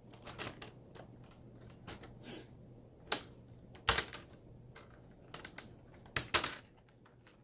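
Plastic clips of a laptop screen bezel snapping into place as it is pressed down: a series of sharp clicks and taps, the loudest about three seconds in, near four seconds, and twice just after six seconds. A faint steady hum runs underneath.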